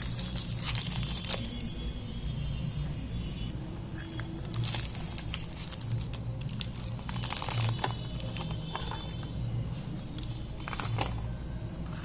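Chocolate bar wrapper being opened by hand: the gold outer wrapper and the inner aluminium foil crinkle and tear in irregular bursts of rustling.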